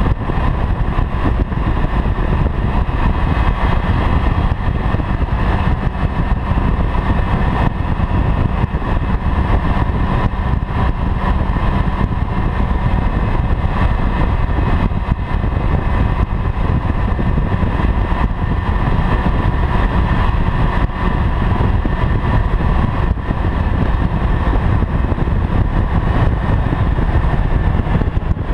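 Honda CB-1's 399 cc inline-four engine running at a steady cruise, mixed with wind rushing over the handlebar-mounted microphone.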